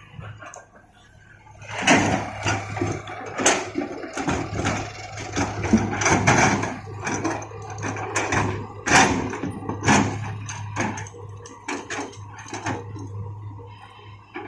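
Rocks knocking and clattering many times in quick, irregular succession over a steady low hum, as an excavator handles stones.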